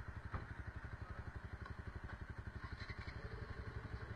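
Sport motorcycle engine idling with an even, rapid low throb. A short click sounds about a third of a second in.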